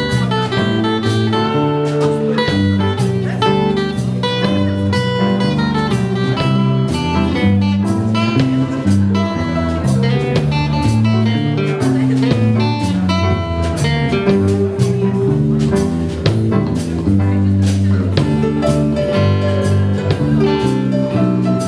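Small jazz band playing an instrumental passage at a swing tempo, with no vocals: acoustic guitar, walking electric bass, drum kit with cymbals and keyboard.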